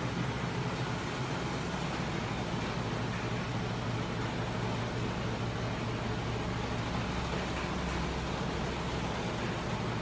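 Homemade crank-and-flywheel machine driven by a 12 V electric motor, running steadily with its spinning flywheel, crank linkages and small 24 V scooter motors turning as generators: a continuous mechanical whir over a low hum.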